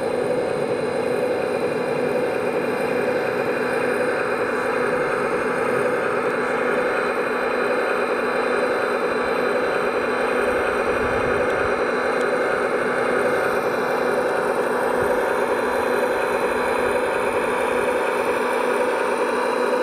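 Radio-controlled Volvo A45G articulated dump truck model running steadily, a constant engine sound with a steady whine over it.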